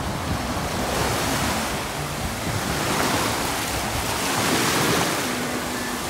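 Small sea waves breaking and washing up over a sandy, shell-strewn shore, with the surf swelling and easing as each wave comes in.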